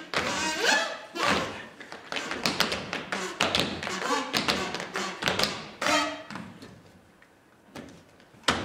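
Tap shoes striking a stage floor in quick, irregular rhythms, mixed with heavier thuds. The tapping thins out about six seconds in, and a single sharp tap follows near the end.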